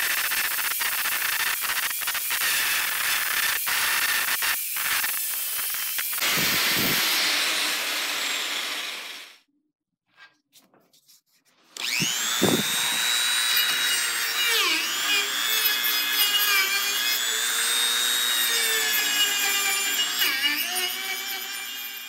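Angle grinder with a flap disc grinding rust off a steel hatchet head, a dense rasp with scattered ticks, stopping about nine seconds in. After a short quiet, a high-speed rotary tool spins up to a high whine that dips and recovers as it grinds the steel head, fading out near the end.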